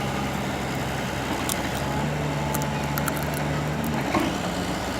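Excavator's diesel engine running steadily, its note shifting slightly about two seconds in and changing again about four seconds in, with a short knock near the end.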